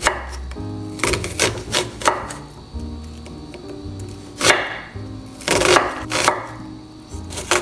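Kitchen knife slicing through a raw onion and knocking on a wooden cutting board, about nine cuts at uneven spacing, roughly one a second, over background music.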